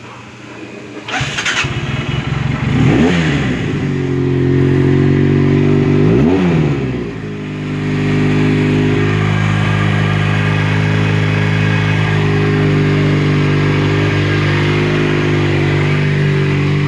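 Factory F300 motorcycle engine firing up about a second in, revved up and down twice, then settling into a steady idle.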